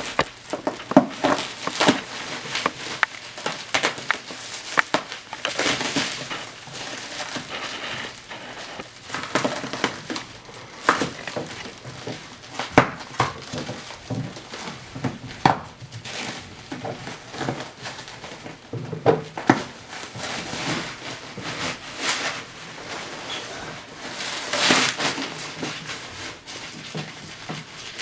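Packing material rustling and crinkling as it is pulled away and handled, with scattered sharp knocks and clicks.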